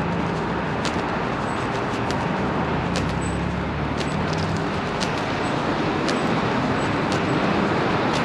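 City street traffic: a steady wash of passing cars with low engine hum, and faint sharp ticks about once a second.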